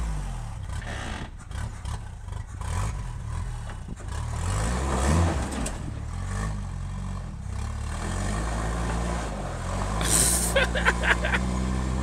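First-generation Toyota pickup's engine revving up and down as the lifted truck crawls up a wet dirt-and-rock slope. Near the end there is a brief hiss with a few sharp clicks.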